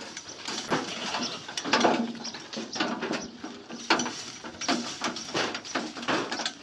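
Goats biting, tearing and crunching dry old bread held out to them, a run of irregular crackling snaps.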